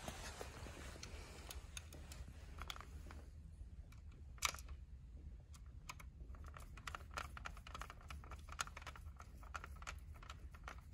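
A hand screwdriver turning small screws into the metal frame of an ABB VD4 breaker's undervoltage release coil assembly, giving faint, irregular light clicks and metal ticks. There is one sharper click about four seconds in, and a quicker run of small clicks in the second half.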